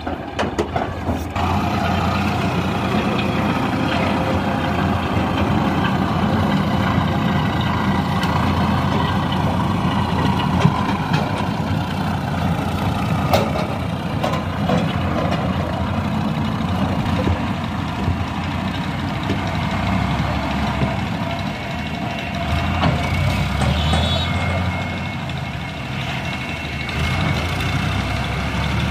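Farm tractor engine running steadily under load, as its hydraulic tipping trailer empties sand and the tractor then pulls away.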